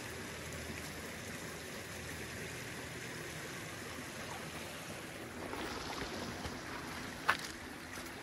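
A shallow creek running steadily, with a single sharp snap about seven seconds in.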